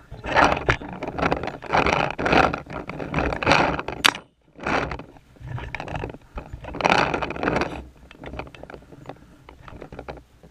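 Bursts of rattling and scraping handling noise from a paintball marker and the camera mounted on it, jostled about while being carried, with many small clicks in among them.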